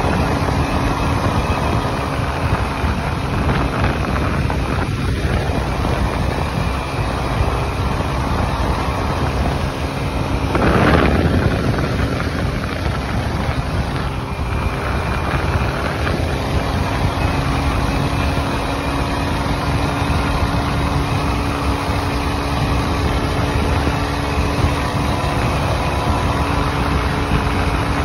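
A 125cc scooter's engine running steadily at a cruising speed of about 80 km/h, under a haze of wind and road noise. A brief louder whoosh comes about eleven seconds in.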